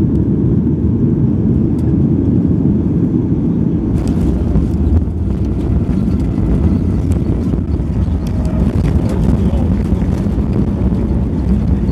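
Jet airliner cabin during landing: a loud, steady low rumble of engines and airflow. From about four seconds in, rattles and knocks join it as the wheels touch down and roll along the runway with the wing spoilers raised.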